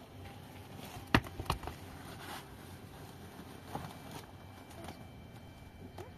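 Two sharp knocks close together about a second in, then faint scattered ticks and rustling while a large canvas tarp is handled against a block wall.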